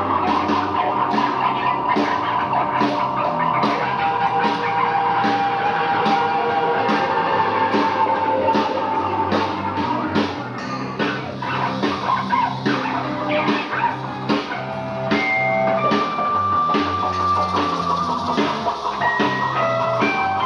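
Live rock band playing an instrumental passage: a drum kit keeps a steady beat under guitar with long held notes and a moving bass line.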